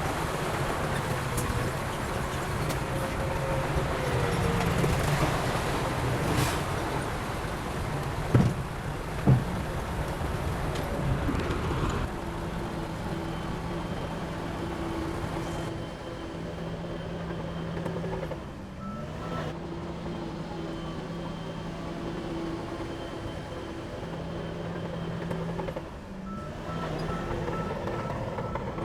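Heavy diesel machinery running with a steady engine note, and two sharp knocks about eight and nine seconds in. Near the end a faint, evenly repeating beep joins it.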